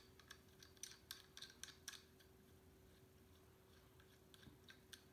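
Faint clicks and light taps of small metal parts being handled on a Steyr AUG receiver. There is a quick run of about ten clicks in the first two seconds and a few more near the end.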